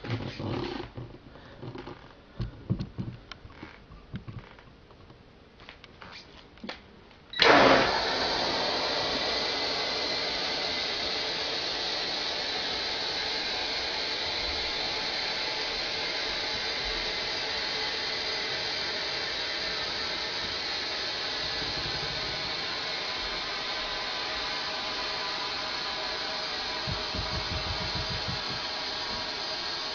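A few faint clicks and knocks, then, about seven seconds in, a sprinkler valve snaps open and compressed air from a tank at about 105 psi rushes out in a loud, steady hiss that slowly weakens.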